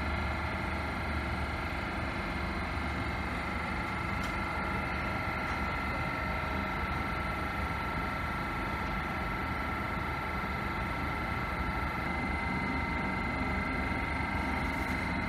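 Eurobahn Stadler FLIRT electric multiple unit at the platform, its electrical equipment humming steadily with two constant high tones over a low rumble.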